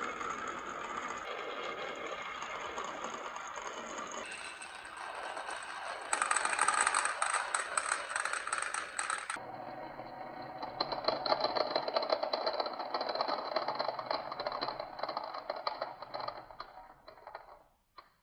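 Marbles rolling and clattering down a wooden HABA marble-run track, a dense continuous rattle of many small clicks. It changes abruptly a few times and fades out near the end.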